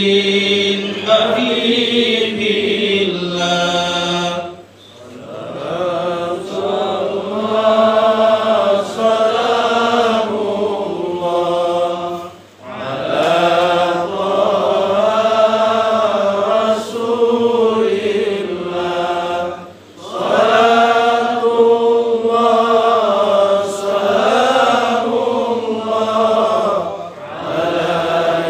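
A man chanting salawat, the Arabic devotional praise of the Prophet, into a microphone. He sings long melodic phrases of about seven to eight seconds each, with a short break for breath between them.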